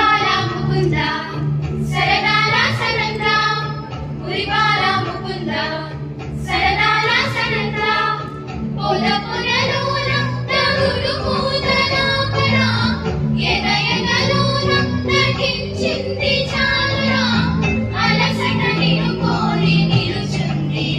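A group of schoolgirls singing a song together, in phrases of a few seconds each.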